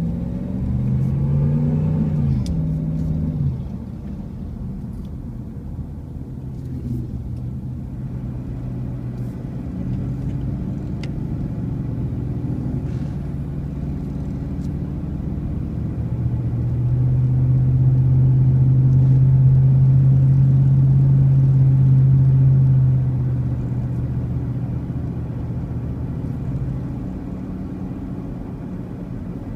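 Vehicle engine pulling away, rising in pitch and dropping back twice through gear changes in the first three seconds, then cruising at a steady pitch. It grows louder for several seconds past the middle, then eases back.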